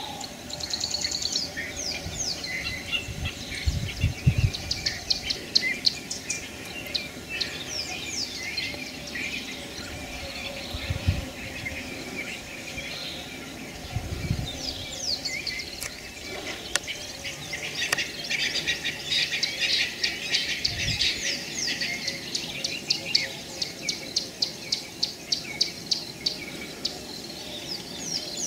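Mixed wild birdsong, many short chirps and whistles overlapping, with one bird repeating a sharp note a few times a second in the last few seconds. A few low dull thumps come and go.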